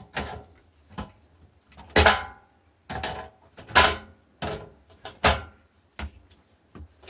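A string of sharp knocks and clatters, about one a second, from hard plastic and metal monitor parts being handled and worked apart.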